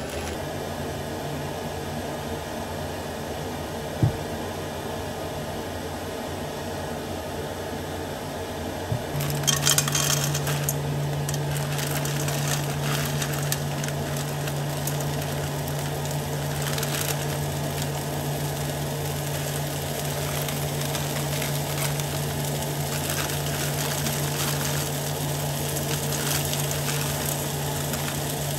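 A single sharp knock about four seconds in. About nine seconds in, an electric appliance starts a steady low hum, with light clattering and crackling over it.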